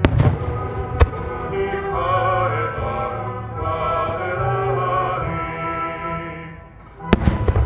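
Music fading out near the end, with aerial firework shells bursting: a bang at the start, another about a second in, and several bangs in quick succession near the end.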